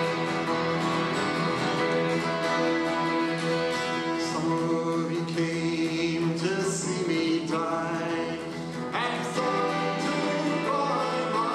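Live folk song played on acoustic guitar, violins and cello, with a man singing.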